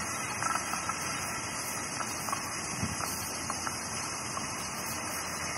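Steady hissing background noise with a few faint clicks scattered through it.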